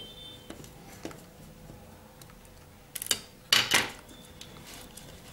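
Light clicks of a screwdriver working the circuit-board screws of an electric mosquito racket, then, about three seconds in, two short clattering scrapes of plastic and board as the circuit board is pulled out of the racket's plastic handle housing.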